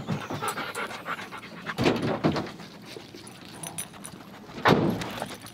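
Rottweilers panting up close in uneven breathy bursts, the loudest near the end.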